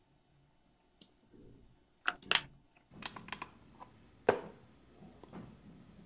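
Small hard resin pieces clicking and tapping as they are handled and fitted together: a quick cluster of sharp clicks about two seconds in, scattered lighter taps after, and one loud click a little past four seconds.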